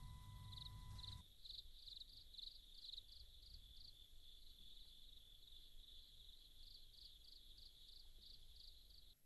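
Faint crickets chirping: a steady high trill with rhythmic chirps about three a second, pausing for a couple of seconds midway. A low hum with a thin steady tone runs underneath at first and cuts off about a second in.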